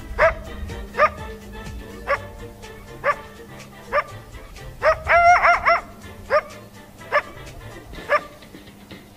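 Coyote barking: short yelps that sweep sharply upward in pitch, about one a second, with a quick run of four or five in a row just past the middle.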